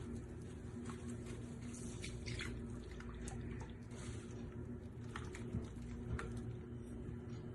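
Faint water splashing and dripping in a kitchen sink, with scattered light clicks and taps, over a steady low hum.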